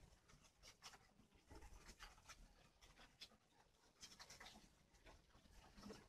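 Near silence with scattered faint clicks and scratches: spotted doves pecking and scratching for food on bare soil among grass.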